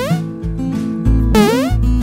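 Background music: a guitar tune over a steady bass line, with a rising sliding note heard twice.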